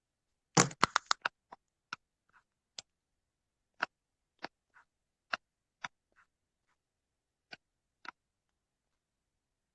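Sharp clicks and taps: a quick cluster of about seven about half a second in, then single clicks at irregular intervals of a second or two, stopping after about eight seconds.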